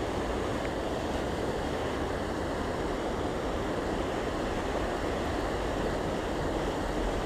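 Steady rush of a flood-swollen river's fast current.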